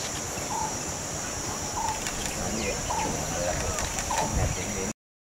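Rural ambience: a steady high-pitched insect drone with a bird calling in short repeated notes, about every half-second. The sound cuts off abruptly near the end.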